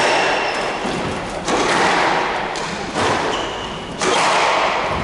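Squash ball being struck by rackets and hitting the court walls during a rally: three sharp impacts about a second to a second and a half apart, each ringing on in the echo of the court.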